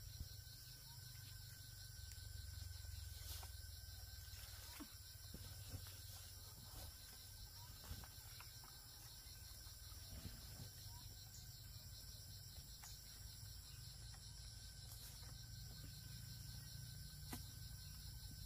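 Faint, steady chirring of insects such as crickets, with a low rumble underneath and a few scattered faint clicks.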